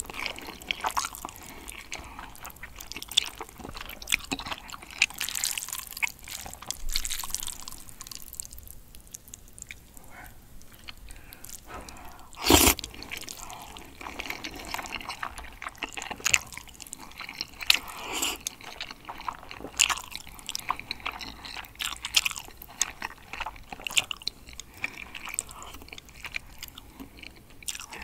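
Eating sounds: spicy glass noodles from braised chicken being slurped and chewed, with many small wet mouth smacks and one louder slurp about halfway through.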